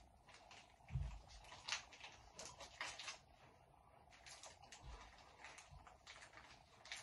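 Faint chewing and crunching of a snack, heard as scattered small clicks and crackles, with a soft thump about a second in, in a small tiled bathroom.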